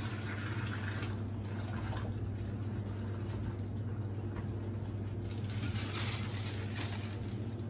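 Water running steadily into a plastic bag as the bag is filled.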